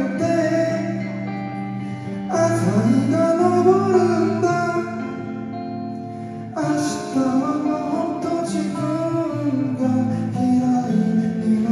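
Live band playing a pop-rock song: a singer over electric guitar, bass guitar, keyboards and drums. It swells louder about two seconds in, eases off around the middle, and swells again shortly after.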